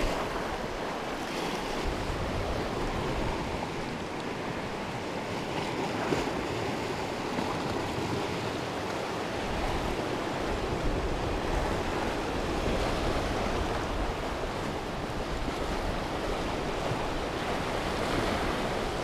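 Sea waves washing and breaking against shore rocks in a steady surf noise, with wind buffeting the microphone.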